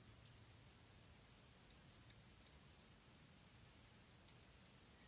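Faint insect chirping: a steady high trill with short chirps repeating every half second or so.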